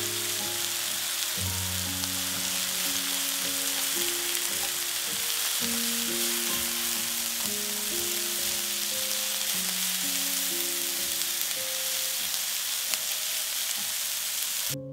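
Food frying in oil in a pan, a steady sizzle, with a soft melody playing underneath.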